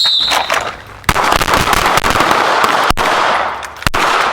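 The high start beep of a shot timer fades out. About a second later, handgun fire begins from several shooters on the line, shot after shot in quick succession and overlapping.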